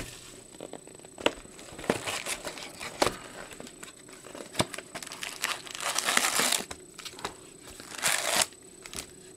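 Cardboard trading-card hobby box being opened by hand: crinkling and rustling of packaging and cardboard flaps, with a few sharp taps in the first half and two longer rustles near the end.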